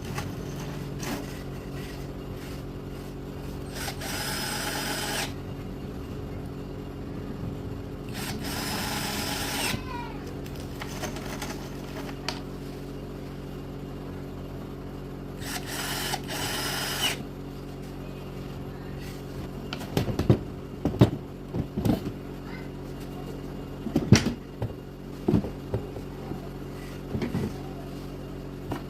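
Cordless drill driving screws into laminate-faced board in three short bursts, followed by a series of sharp knocks, over a steady low hum.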